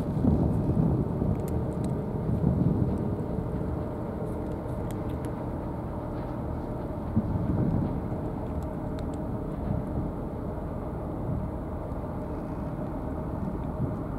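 Low, uneven rumble of wind buffeting the microphone outdoors, swelling in gusts, with a few faint clicks.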